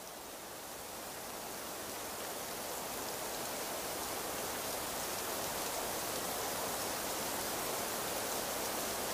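Steady, even outdoor hiss with no distinct events, swelling gradually over the first few seconds and then holding level.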